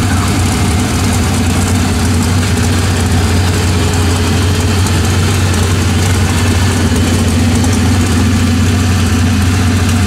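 An engine idling steadily: a low, even drone with no revving.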